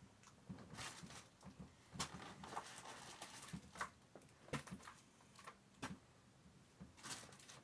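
Faint scattered rustles, crinkles and soft thumps as plastic-bagged paper squishies are dropped onto a bed, with some shuffling of feet on the mattress.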